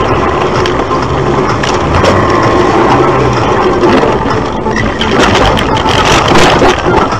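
A car sliding off a snowy road and bouncing across a snow-covered field, heard from inside the cabin: a loud, continuous rumble and rattle, with a run of sharp knocks and bangs in the second half.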